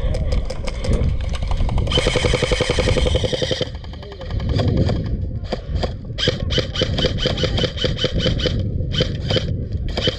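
G&G CM16 airsoft electric rifle firing: a very rapid full-auto burst about two seconds in, lasting under two seconds, then a long string of quick shots from about six seconds on.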